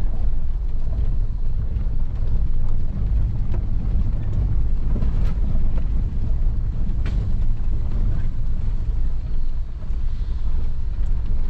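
Toyota FJ Cruiser driving slowly along a dirt track, heard from inside the cabin: a steady low rumble of engine and tyres on gravel, with a few light knocks and rattles, the sharpest two about five and seven seconds in.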